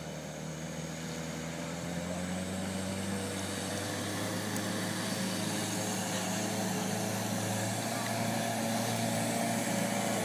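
Daihatsu Fourtrak's engine running steadily as it wades through a deep ford, pushing water ahead of it; the engine grows gradually louder as the vehicle approaches.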